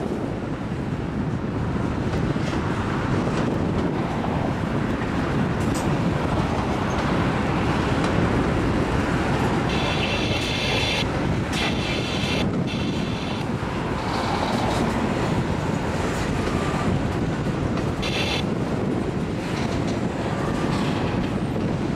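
Long Norfolk Southern freight train rolling slowly past, its cars' wheels rumbling steadily on the rails. Brief high screeches come about ten seconds in and again a few seconds later.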